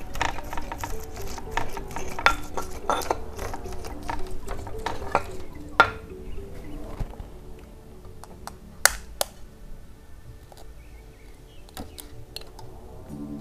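Stone pestle grinding and pounding chillies, shallots and garlic in a stone mortar, a rapid run of scraping knocks that thins out to a few single knocks. Near the end, a few light taps of a knife blade on an eggshell.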